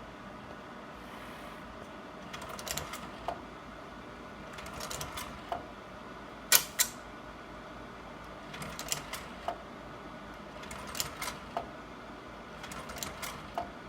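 Sawyer 550R slide projector running: a steady cooling-fan hum under clusters of mechanical clicks every two seconds or so as its slide-change mechanism cycles slides from the round tray. The sharpest click comes about six and a half seconds in.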